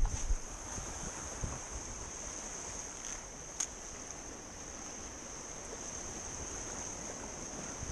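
Sea surf washing along the shore with wind on the microphone, an even, steady noise. A steady high-pitched whine sits over it, and there is a single sharp click about three and a half seconds in.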